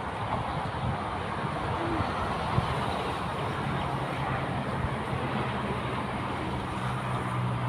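Steady road traffic noise, with a low engine hum from a passing vehicle growing in about halfway through and holding. A single sharp click comes a little over two seconds in.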